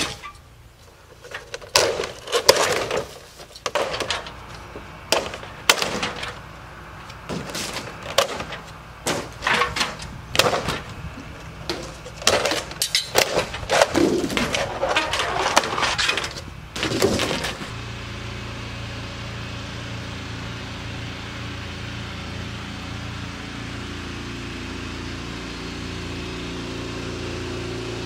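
Siding panels being pried and torn off a wall: repeated irregular cracking, snapping and clattering as pieces break free and drop. About two-thirds of the way through this gives way to a steady motor hum.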